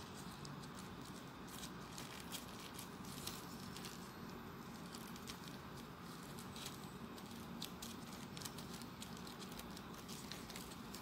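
Paper rustling with small irregular clicks as folded 3D origami paper units are handled and pressed together, over a steady background hiss.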